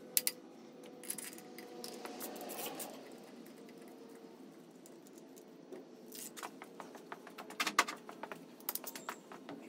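Ratchet wrench clicking in several short runs on the crankshaft pulley bolt as the Saab B207 four-cylinder engine is turned over by hand.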